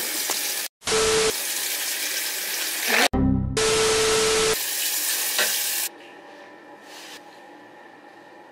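TV-static glitch transition effect: loud white-noise hiss chopped by two brief dropouts, with a steady beep-like tone twice and a short low buzz. It cuts off about six seconds in, leaving faint room sound.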